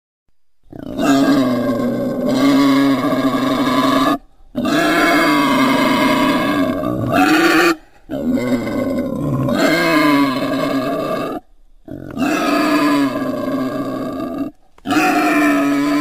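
Wild boar calling in five long, pitched stretches of about three seconds each, separated by short breaks.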